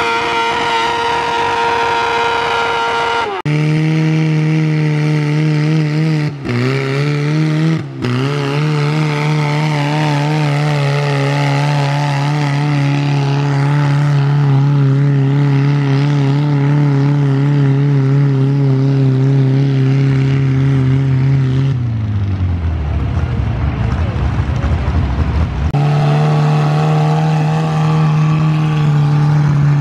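Garden tractor engine running flat out while pulling a weight sled. Its speed dips sharply three times in the first eight seconds and recovers, as if bogging under the load, then holds steady. About 22 s in the engine speed falls away, and a steady high-revving engine comes back about four seconds later.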